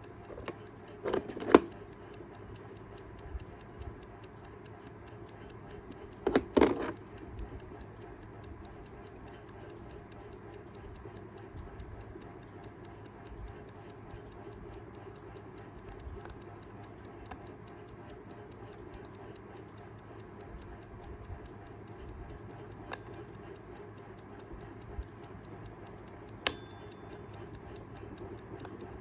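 Kaiser 4 Rubis travel alarm clock ticking steadily, its movement running again after being revived. A few louder knocks come about a second in and around six seconds in, with one sharp click near the end.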